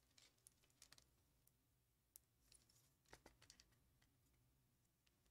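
Near silence broken by faint, scattered clicks and taps, about a dozen over the first four seconds.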